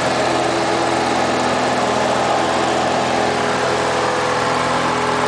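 Light aircraft's piston engine and propeller running steadily, a continuous drone with a hum of several steady tones over loud rushing noise.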